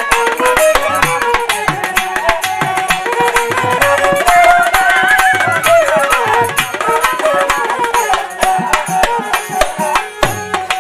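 Instrumental interlude of Bangladeshi folk pala gaan: bamboo flute and harmonium play a winding melody over fast, dense beats on a two-headed barrel drum (dhol).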